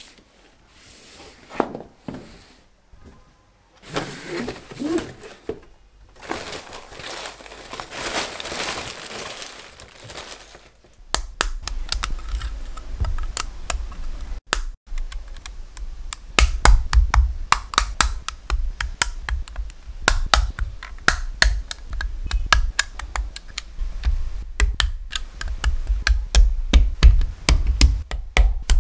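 Cardboard packaging sliding and rustling. About eleven seconds in, a dense run of sharp clicks and taps begins as Sluban plastic building bricks are pressed and snapped together, with heavier thumps of the bricks against the table from about halfway on.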